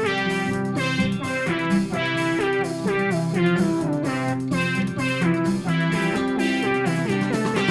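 Background music led by a plucked guitar, notes changing in a steady rhythm.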